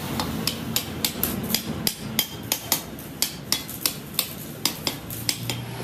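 Hand hammer striking a steel truck rear-axle part again and again, about three sharp metallic blows a second, keeping up a steady rhythm.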